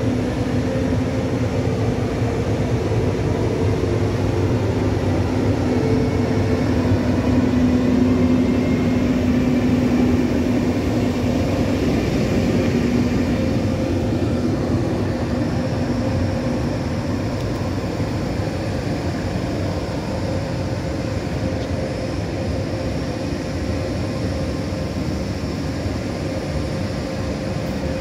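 ÖBB Railjet's electric locomotive, a Siemens Taurus of class 1116, running close by: a steady hum of blowers and traction equipment with a low drone that swells about eight seconds in and eases after about thirteen seconds, as the train pulls out.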